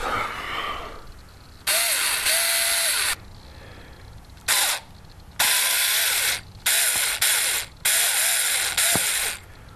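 Ratchet wrench clicking in about five runs, each starting and stopping sharply with short pauses between, as the fasteners of a scooter's air cleaner are undone.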